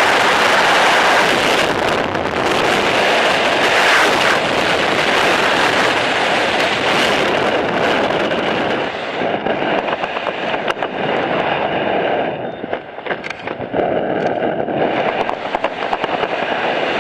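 Freefall wind rushing over the camera's microphone during a skydive, a loud steady roar. About halfway through it loses its hiss and turns gustier and more fluttering.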